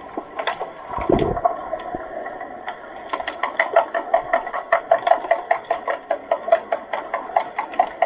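Underwater hockey play heard through the water of a pool: a steady underwater hiss, a low thump about a second in, then a quick run of sharp clicks and knocks, about six a second, from about three seconds in.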